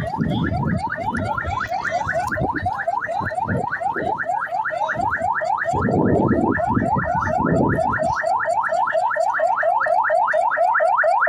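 Electronic siren on a fast yelp: rising wails repeating about six times a second, steady throughout, with bursts of low rumbling noise beneath.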